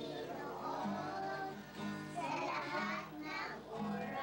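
A small choir of young children singing a song together.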